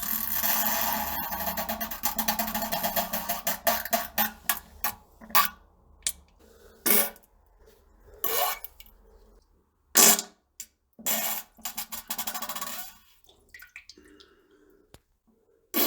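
A long, sputtering fart that trails off over about four seconds, followed by a string of shorter, separate farts.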